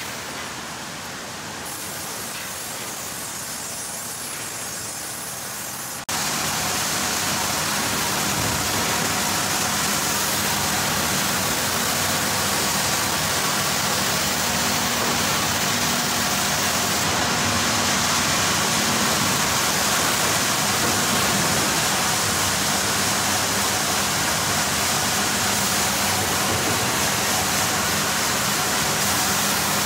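Sawmill machinery running: a steady, dense mechanical din with a faint hum underneath, jumping suddenly louder about six seconds in and staying steady after that.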